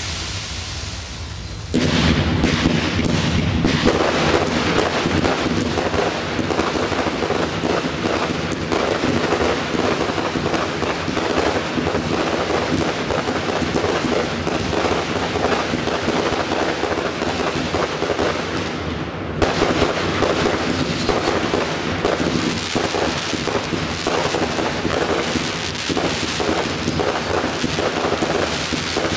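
Fireworks display: a dense, near-continuous string of bursting shells and crackle, rapid bangs one on top of another. It starts about two seconds in and thins briefly about two-thirds of the way through before carrying on.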